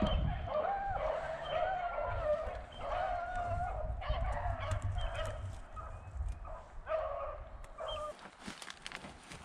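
Beagles baying as they run a rabbit's scent trail: a string of drawn-out, overlapping hound bawls that get fainter over the last few seconds. Low wind rumble underneath.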